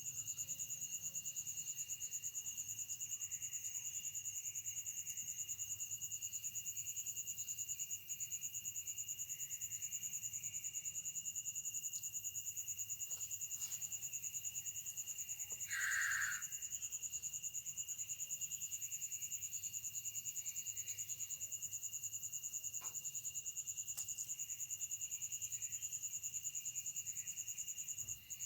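Night chorus of crickets and other insects: several steady, high trills layered at different pitches. About halfway through, a short, louder sound lasting under a second stands out above the chorus.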